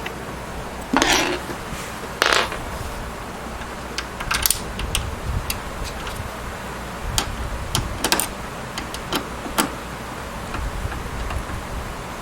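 Phillips screws being handled and driven into a desktop PC case's metal side panel: irregular metallic clicks, clinks and short scrapes, with two longer scrapes in the first few seconds.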